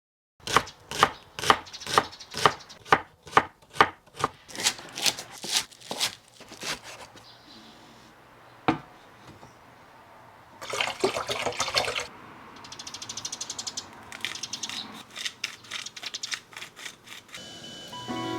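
Knife chopping food on a cutting board, about two even chops a second for the first seven seconds. Then a single knock, a short burst of running water, and a run of quicker, lighter chops.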